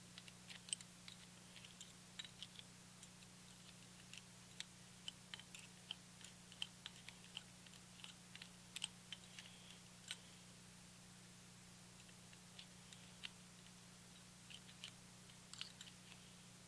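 Faint, irregular small metallic clicks and taps as jointer knives and their gib bars are worked into the slots of a Delta 654 jointer's steel cutterhead by hand, the gib screws being turned out to press the gibs against the blades. A steady low hum lies underneath.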